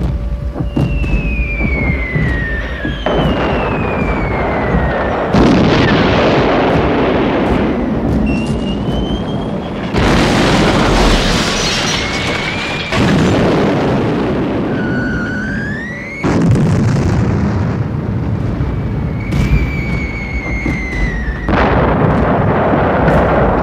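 Air raid sound effects: whistles falling in pitch like dropping bombs, then a series of loud explosions that start abruptly, one after another, with more whistling tones between them and music underneath.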